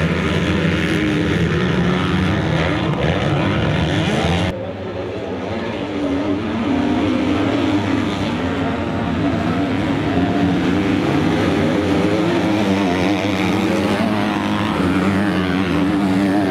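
A pack of motocross bikes racing, several engines revving up and down over one another. About four and a half seconds in the sound breaks off suddenly, comes back a little quieter, then builds again.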